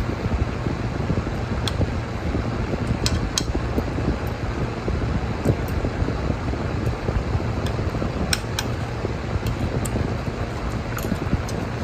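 Spoon and fork clinking lightly against a ceramic plate now and then while eating, over a steady low hum and hiss.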